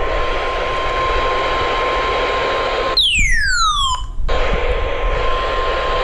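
NOAA Weather Radio warning alarm tone: a steady single tone of about 1 kHz under the loud hiss of weak radio reception. About three seconds in, the hiss and tone drop out for just over a second while a falling electronic sweep plays, then both come back.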